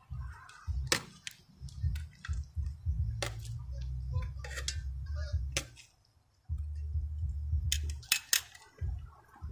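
Steaks being laid into cast-iron pans on small grills: a scatter of sharp clicks and knocks over a patchy low rumble on the microphone, which drops away for a moment about six seconds in.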